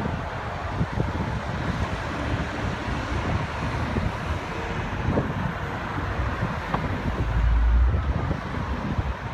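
Steady rumble of highway traffic and idling vehicles with wind buffeting the microphone, and a heavy gust hitting the microphone near the end.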